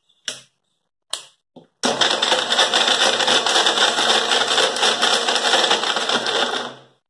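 Electric mixer-grinder with a steel jar running for about five seconds, coarsely grinding chopped pind dates with a little water, then winding down as it is switched off. A few light clicks of the lid and speed knob come just before the motor starts.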